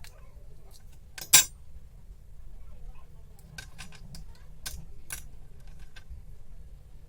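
Small hard clicks and taps of objects being handled, with one sharp, loud double click about a second in and a scatter of lighter clicks over the middle seconds, above a low steady background hum.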